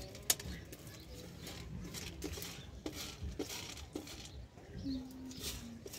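Dried beans being sorted by hand on an enamel tray: scattered small clicks and light rattling as the beans are pushed and picked over the metal.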